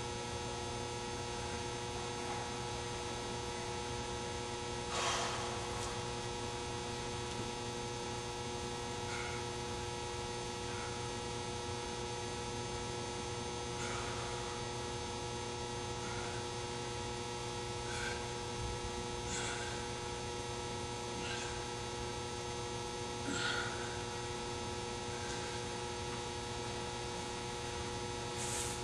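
Steady electrical hum made of several constant tones, with faint brief swishes every few seconds, the clearest about five seconds in.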